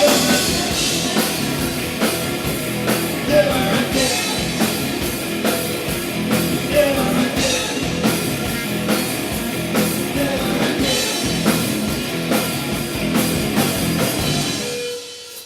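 Rock band playing live and loud, the drum kit hitting steadily under the full band, recorded on a camera's built-in microphone. The music drops away near the end as the song finishes.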